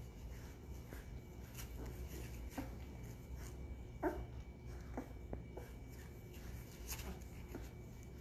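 Eleven-day-old Great Bernese puppies giving a few brief squeaks and whimpers, the loudest about four seconds in and falling in pitch, over a low steady hum.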